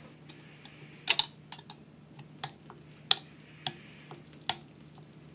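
A series of sharp, separate clicks and taps of hard mixer parts, about six in all with a double click about a second in, as the KitchenAid mixer's drip ring is pressed into place.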